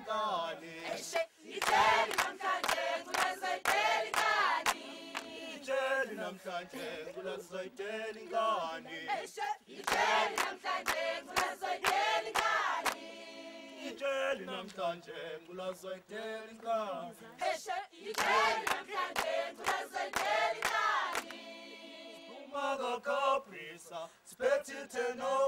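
A mixed group of men's and women's voices singing a cappella in a chant-like choral style, with a louder sung phrase coming round about every eight seconds.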